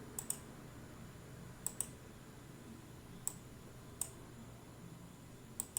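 Computer mouse clicks, a few at a time, some in quick pairs like double-clicks, over faint room hiss.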